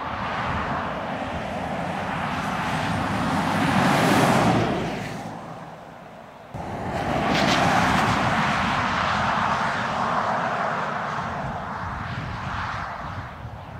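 Land Rover Defender 90 P300's 2.0-litre four-cylinder petrol engine and tyres as the SUV drives past on tarmac, swelling to a peak about four seconds in and fading. After a sudden cut, a second pass swells again about seven seconds in and slowly dies away.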